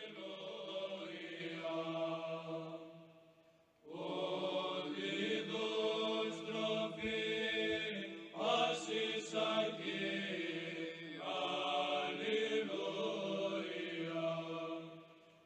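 Background choral chant: voices holding long, sustained notes, breaking off briefly about four seconds in and then resuming.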